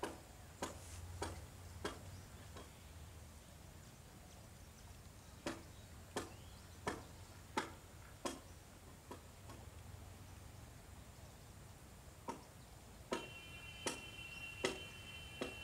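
A series of sharp clicks or knocks, scattered at first, then a regular run of about one every 0.7 s midway, and scattered again. Near the end a steady high-pitched tone joins in for a few seconds.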